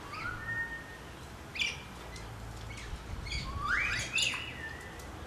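Galahs calling: a string of short high chirps and rising, screechy calls, loudest about four seconds in.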